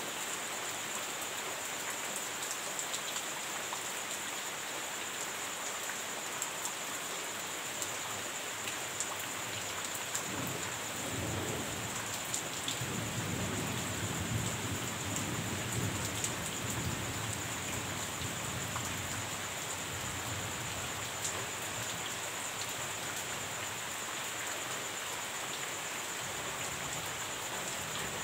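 Steady heavy rain with scattered drops ticking on nearby surfaces; about ten seconds in, a roll of thunder rumbles low under the rain and fades out some eight seconds later.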